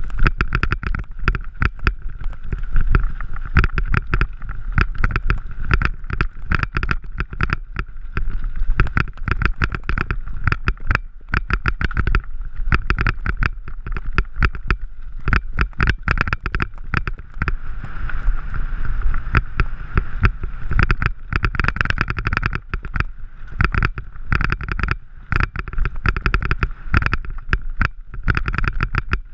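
Mountain bike clattering and rattling over a loose, rocky gravel trail: a dense, irregular run of knocks and jolts, with wind rumbling on the microphone.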